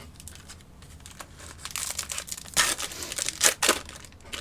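A Bowman baseball card pack's foil wrapper crinkling as it is torn open, with sharp rips about two and a half and three and a half seconds in.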